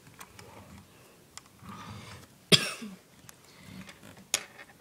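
A single short cough about halfway through, with faint clicks from a hand handling a diecast model fire truck.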